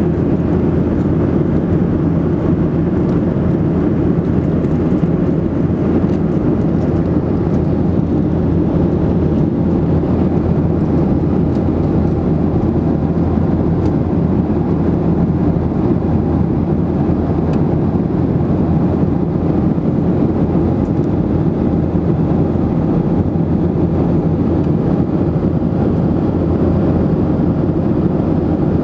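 Steady low rumble of a jet airliner's engines and rushing air, heard from inside the passenger cabin in flight.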